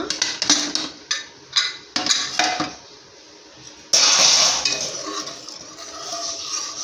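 Aluminium pressure cooker lid being twisted open and lifted off, with a run of metal clicks and clanks, and a brief hiss about four seconds in. Then a ladle scrapes and clinks in the aluminium pot as the cooked chickpea curry is stirred.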